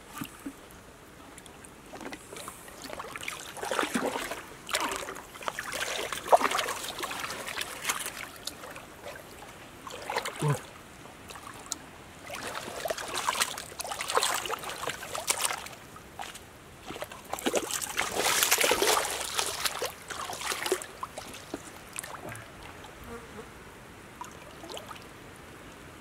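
Shallow stream water splashing and sloshing in irregular bursts, heaviest about four to eight seconds in and again from about twelve to twenty-one seconds in, then settling to a faint trickle.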